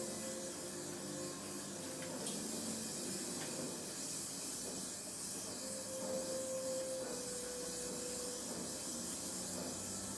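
Gas torch flame hissing steadily while joining a steel seat lug on a chromoly bicycle frame.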